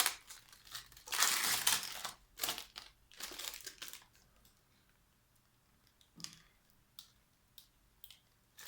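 Packaging crinkling and tearing as it is handled and opened, loudest in the first few seconds, then a few light rustles and clicks.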